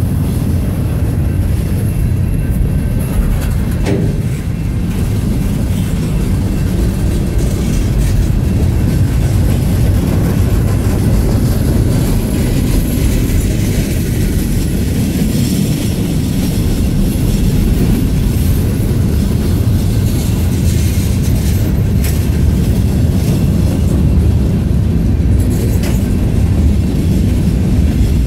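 Freight train cars rolling past at close range: a steady, loud rumble of steel wheels on the rails, with a few sharp clicks as wheels cross rail joints.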